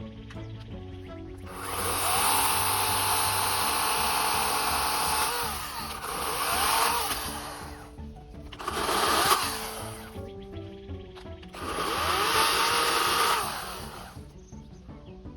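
Cordless EGO electric chainsaw cutting wood in four bursts, the first about four seconds long, its motor whine shifting in pitch as the chain bites, over background music.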